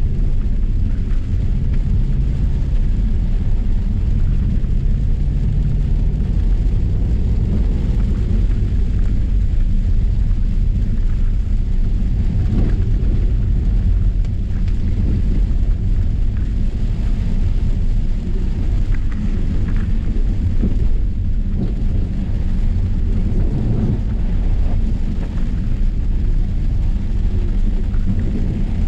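Range Rover Sport driving through heavy rain on a wet dirt road, heard from inside the cabin: a steady low rumble of engine, tyres and road, with rain on the body.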